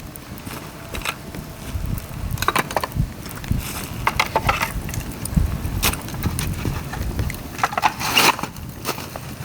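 Dry bamboo cracking and snapping in irregular sharp bursts, loudest around the middle and near the end, over a continuous low rumble.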